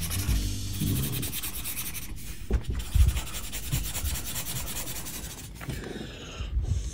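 Felt-tip marker scribbling on paper in rapid back-and-forth strokes as an area is coloured in, with a few soft knocks against the table.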